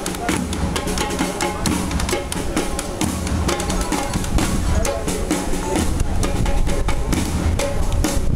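Loud percussion-driven music: quick, regular drum hits over a steady bass drum line.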